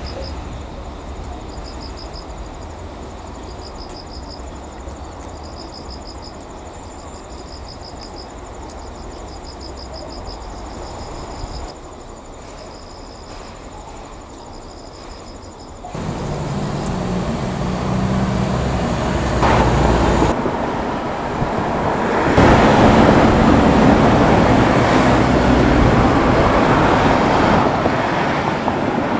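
EF64 electric locomotive hauling a coupled car at low speed: a steady hum and rumble that starts suddenly about halfway through and grows louder near the end. Before it, a quieter low rumble carries repeated high chirps, one every second or so.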